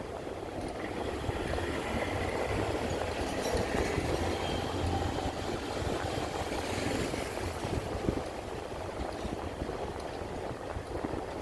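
Toshiba Smart Eco air conditioner outdoor unit running steadily, its fan and compressor giving a low hum under a noisy whoosh that swells a little in the middle.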